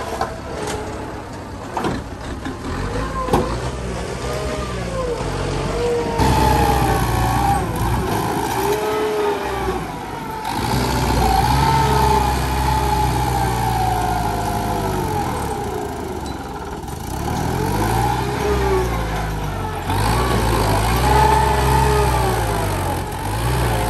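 Diesel engines running under load. First a dump truck tips its load of rocky soil, with a few sharp knocks. From about six seconds in, a Kubota tractor pushes the soil with its blade, the engine's pitch rising and falling repeatedly with throttle and load.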